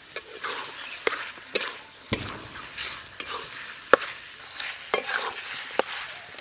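A flat metal spatula scraping and clinking against a metal kadai as chicken is stirred and fried in its spice masala, with sharp clinks about once a second over a steady sizzle. The chili powder is being worked into the frying chicken.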